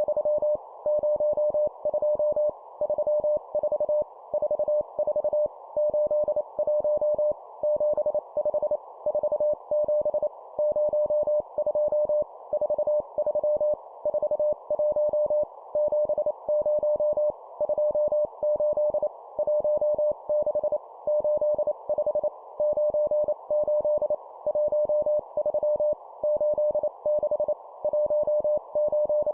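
Morse code (CW) practice tone near 600 Hz keyed at 25 words per minute, sending groups of two numbers with short pauses between groups, over a faint steady hiss.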